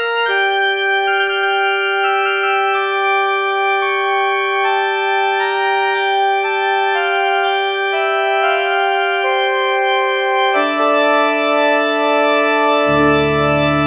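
Roland D-20 synthesizer (Linear Arithmetic synthesis) playing an organ-like patch: slow sustained chords that change every second or two, with a deep bass note coming in near the end.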